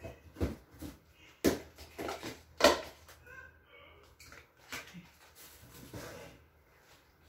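Dishes and glasses being handled and set down on a kitchen counter: a run of clinks and knocks, the two loudest about a second and a half in and again about a second later.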